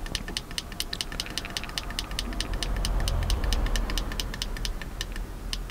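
Small button on a tyre-pressure monitor display pressed over and over, a fast run of light clicks at about five or six a second, each press stepping the alarm value up. A low rumble underneath swells about three seconds in.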